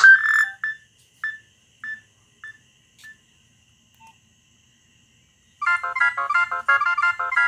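Nokia 6010 mobile phone ringtones: one tone ends on a short electronic note repeating about every half second, each repeat softer, until it dies away. After a pause of about two seconds, the next ringtone starts about five and a half seconds in with a quick run of bright electronic notes.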